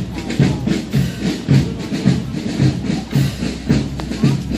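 A marching drum beaten in a steady parade rhythm, about two beats a second.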